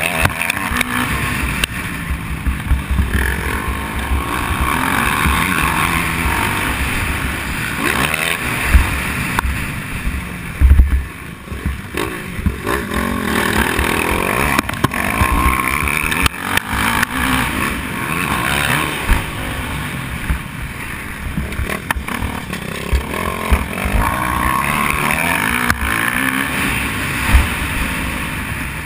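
Motocross dirt bike engine revving up and down as it is ridden round a dirt track, heard from the bike itself, with wind rumbling on the microphone. A couple of loud knocks come about nine and eleven seconds in.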